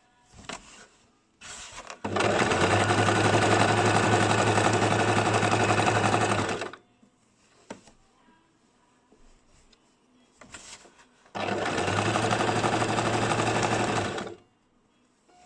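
A basic household electric sewing machine stitching in two steady runs: one of about four and a half seconds starting two seconds in, then a shorter one of about three seconds. Brief handling noises come just before each run.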